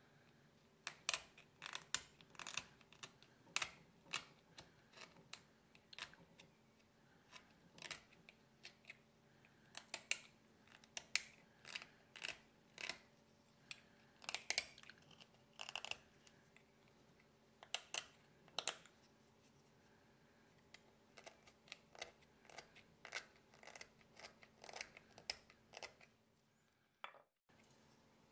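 Small hand carving blade paring into a tagua nut (vegetable ivory): short, crisp scraping cuts, irregular, about one or two a second, with a pause of a couple of seconds about two-thirds of the way through.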